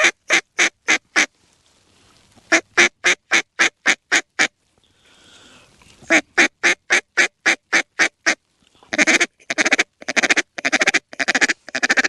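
Hunter's mallard duck call: three strings of evenly spaced hen quacks, about four a second, then a faster, choppier run of notes near the end, calling to a flock of mallards coming in over the decoys.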